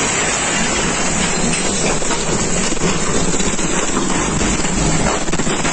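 Tornado winds blowing hard: a loud, steady rush of noise.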